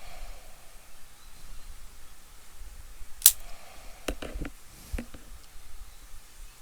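Hand tools clicking during electrical repair work: one sharp snap a little over three seconds in, then a quick cluster of lighter clicks and knocks, and one more about a second later.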